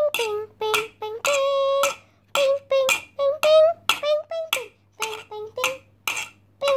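A child's high voice singing in short, steady-pitched syllables, holding one longer note about a second in.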